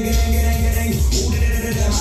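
Music with a heavy bass line played loud over a sound system.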